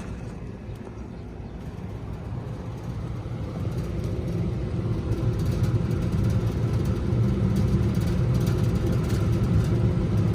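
Steady low mechanical rumble that grows gradually louder.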